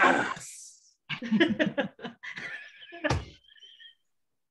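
People laughing over a video call in choppy bursts, with a thump on a microphone about three seconds in.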